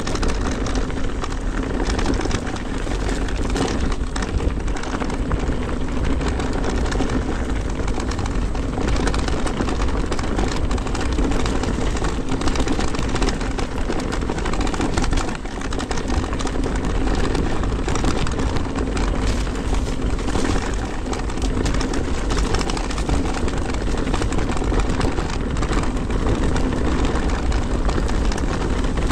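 Cube Stereo Hybrid 160 electric mountain bike ridden down a rough trail: a steady hum with wind and tyre noise, and a light rattle and clatter over the bumps. The rattle is much less than with the Fox Float X rear shock, now replaced by a RockShox Deluxe Select+.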